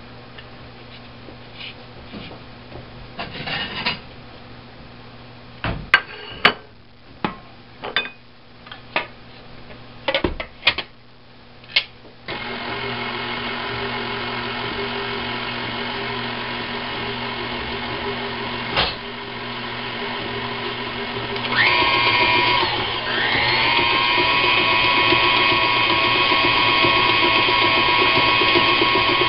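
A few clicks and knocks at the stand mixer's steel bowl, then the electric tilt-head stand mixer starts, running steadily with a whine as it beats fruitcake batter. Later it is switched up to a faster speed, louder and higher-pitched, and holds there.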